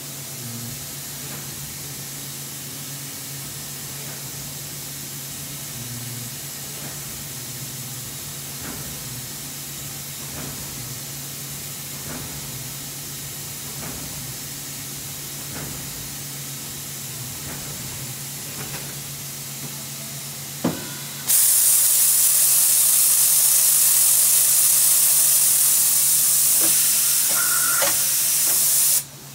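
Mori Seiki MT2000a1SZ CNC lathe running with a steady low hum and faint ticks. About 21 seconds in, a loud, steady hiss from inside the machine starts abruptly, runs for about eight seconds and cuts off suddenly.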